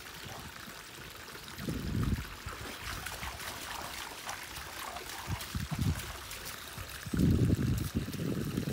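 Shallow stream trickling steadily while a Saint Bernard wades and splashes through it. Low rumbling swells come in about two seconds in, again near six seconds, and louder from about seven seconds on.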